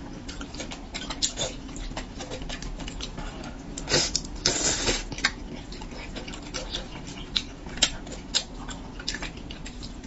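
A person eating spicy braised fish: wet chewing, lip smacks and small mouth clicks, with a louder, longer wet sucking sound about four and a half seconds in.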